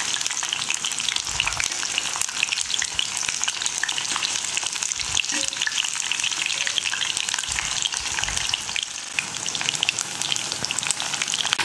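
Batter-coated chicken lollipops deep-frying in oil in an iron kadai: a steady, dense crackling sizzle full of fine pops.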